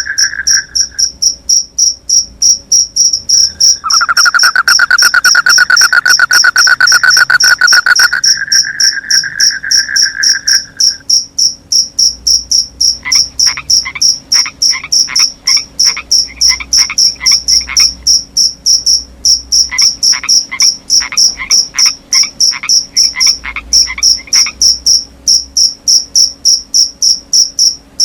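Crickets chirping in a steady, even pulse with frogs calling over them. A rapid lower trill swells loudest from about four to eight seconds in and stops near eleven seconds, then two runs of short quick frog calls come at about two to three a second.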